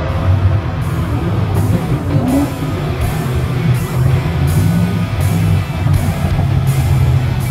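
Background rock music with electric guitar and drums and a steady beat.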